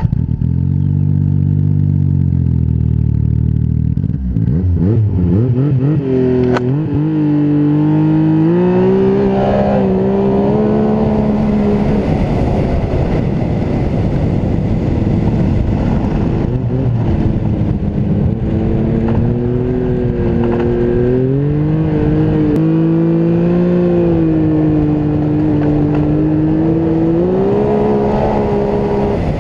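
Turbocharged snowmobile engine running through a Turbo Dynamics Turbo Force aftermarket muffler, a louder model. It starts at a low, steady engine note, climbs in engine speed about six seconds in and holds high, eases off near the middle, then climbs again.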